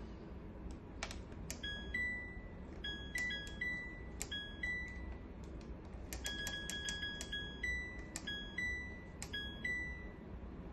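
Washing machine playing a tune of short electronic beeps at a few different pitches, some notes held a little longer, with a quick run of notes about two thirds of the way through, over a steady low hum.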